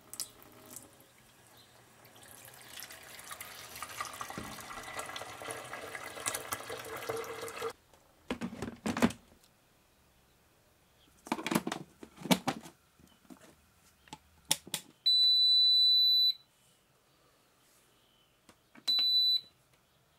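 Water runs from a kitchen tap into a glass soup-maker jug, growing louder as it fills, and stops about 8 seconds in. A few knocks follow. Then the Silver Crest soup maker's control panel gives a long high beep and, about four seconds later, a short one, as the repaired unit powers up with its panel lights on.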